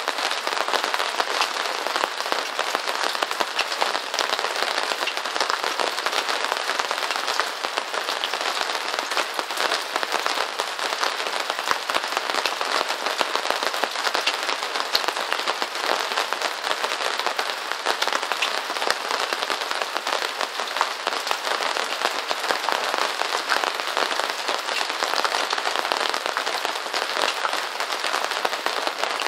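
Steady rain: a dense, even crackle of countless drop impacts.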